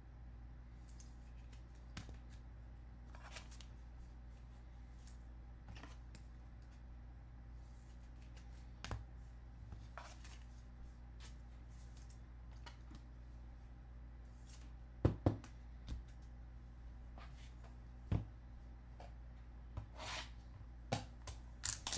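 Trading cards and rigid plastic top loaders being handled: scattered light clicks and slides, with a few sharper knocks about 15 and 18 seconds in. Near the end comes busier handling of a cardboard hobby box. A steady low hum sits under it all.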